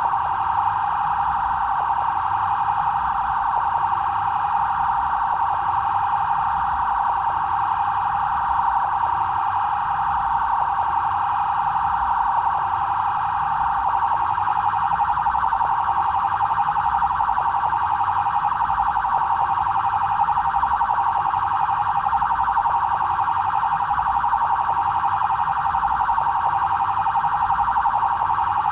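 Brazilian BAEP police vehicle siren sounding its standard "trail" pattern: a continuous fast-warbling tone that repeats steadily without a break.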